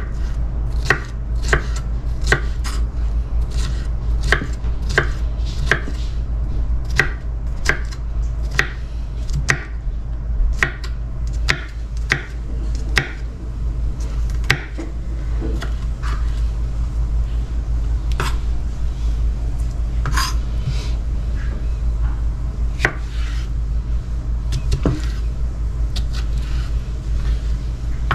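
Kitchen knife chopping cucumber on a wooden cutting board: a run of quick knocks, about two a second at first, thinning out to occasional cuts in the second half.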